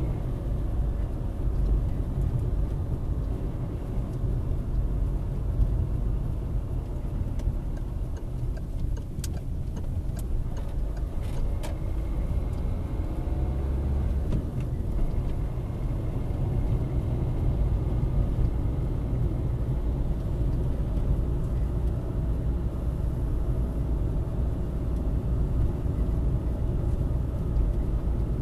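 Car driving, heard from inside the cabin through a windscreen dash cam: a steady low rumble of engine and tyres on the road, with a few faint clicks about a third of the way through.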